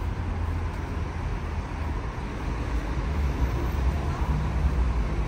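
City street traffic noise: a steady low rumble of cars on the road alongside the sidewalk.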